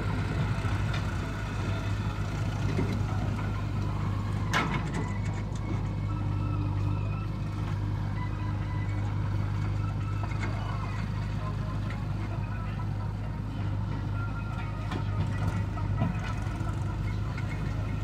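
JCB 3DX backhoe loader's diesel engine running steadily as the backhoe arm digs mud, with a sharp knock about four and a half seconds in.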